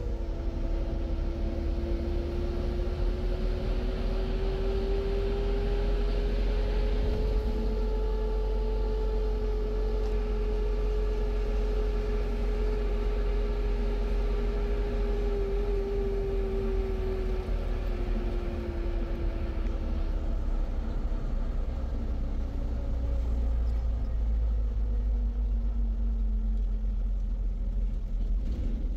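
Steady low rumble of a motor vehicle running, with a drone that climbs in pitch over the first several seconds, holds, then sinks slowly through the second half.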